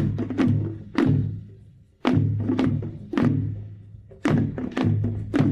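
A drum being practised: groups of three sharp strokes about half a second apart, each ringing on with a low boom, separated by short pauses.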